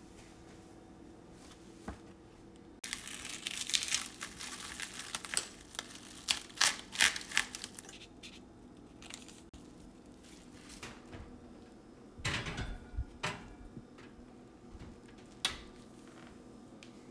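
Plastic cling film crinkling and crackling as it is peeled off a loaf pan of risen dough, in loud bursts lasting several seconds. Later come a shorter crinkly burst with a low knock and, near the end, a single sharp click.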